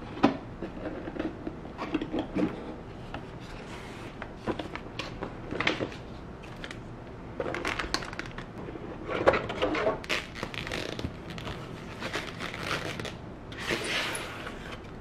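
Camera packaging being handled: the cardboard box lid opened, a plastic accessory bag crinkling, and tissue paper rustling as the new camera is unwrapped near the end, with scattered clicks and knocks of the box and tray.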